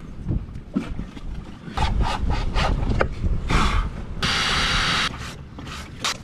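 A stainless steel deck-mount tube being handled and worked loose on a teak boat deck: a run of short knocks and scrapes, with a low rumble in the middle and a harsh scraping hiss lasting about a second, some four seconds in.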